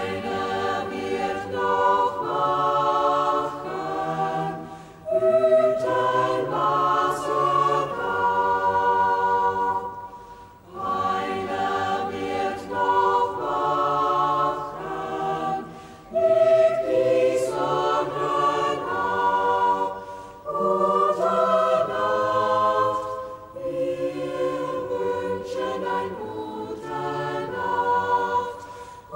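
A choir singing in harmony, in sung phrases of about five seconds with short breaths between them.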